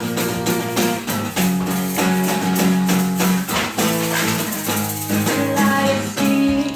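Acoustic guitar strummed in a steady rhythm as the instrumental introduction before the vocal enters, with chord changes about a second and a half in and again near four seconds.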